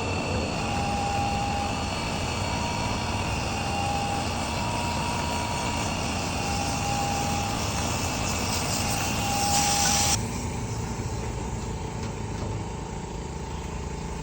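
A motor-driven machine running steadily with a high whine, its noise dropping suddenly about ten seconds in.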